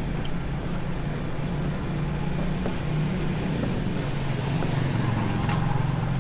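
Busy city street traffic: a steady low hum of vehicle engines running and passing.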